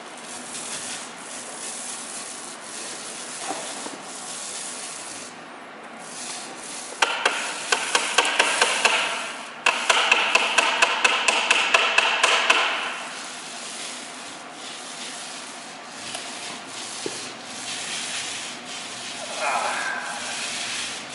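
Quick back-and-forth rubbing strokes against a surface, about five a second, in two louder runs a few seconds long starting about seven and ten seconds in, with a quieter scratchy rubbing around them.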